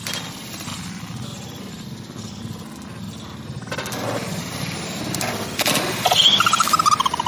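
Water splashing as monkeys dive into a pond, with several splashes at once about two-thirds of the way through. Near the end comes a rapid pulsing call that falls in pitch.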